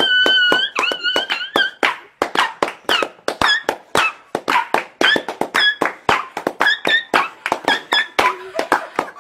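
Rhythmic soundtrack of rapid, irregular clicks and taps, several a second, with short high squeaky tones breaking in now and then: sounds recreated from the dancing-dog meme.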